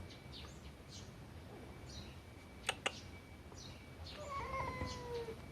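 A cat giving one long meow near the end, drawn out for about a second and slightly falling in pitch. Two sharp clicks in quick succession come a little before it, and faint high chirps sound throughout.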